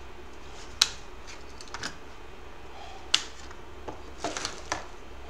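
Woodworking clamps being released and taken off a glue-up: a few sharp plastic clicks, the loudest about a second in and about three seconds in, with softer clicks and clatter between.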